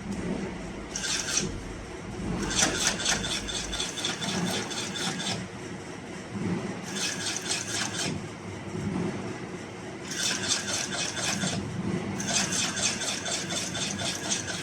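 Shoe-sole stitching machine sewing in short runs of rapid, even needle strokes that stop and start five times, with brief pauses between runs as the servo motor halts the needle.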